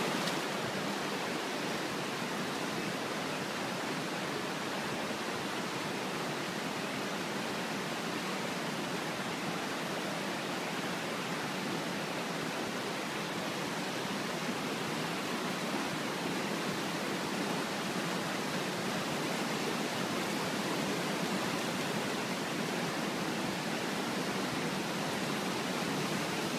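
Flood-swollen, muddy mountain creek rushing over rocks and boulders, a steady even rushing noise with no change throughout.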